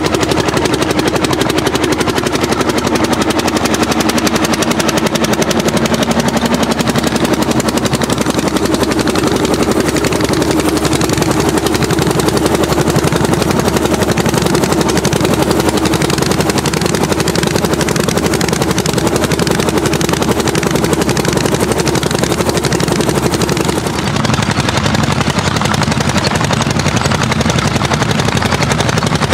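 Orsi Argo's single-cylinder two-stroke hot-bulb engine running under load as the tractor pulls a plough. It makes a loud, rapid, even exhaust beat that holds steady throughout and sounds a little duller in the last few seconds.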